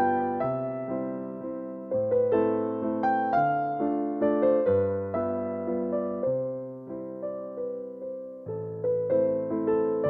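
Piano music: a slow melody of struck, fading notes over low bass notes that change every couple of seconds.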